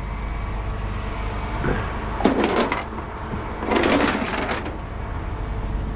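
Steady low engine and road rumble inside a moving truck's cab, with two brief metallic jingling rattles, about two and four seconds in.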